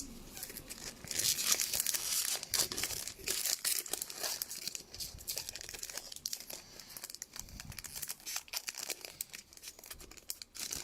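Trading card pack wrappers crinkling and tearing as hockey card packs are opened and the cards handled, a dense irregular crackle throughout.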